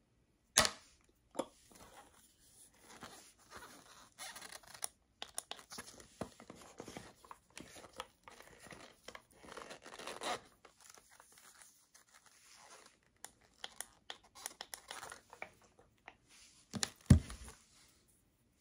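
Plastic wrapping rustling and crinkling as a white charging cable is unwrapped and handled, with a sharp click about half a second in and a louder knock near the end.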